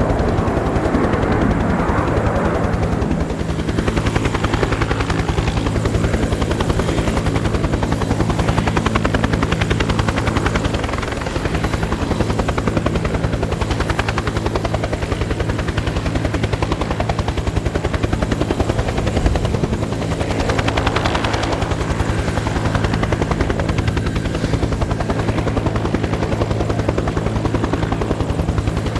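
Helicopter running continuously: rapid, even rotor beat over a steady low engine hum, swelling and easing a few times.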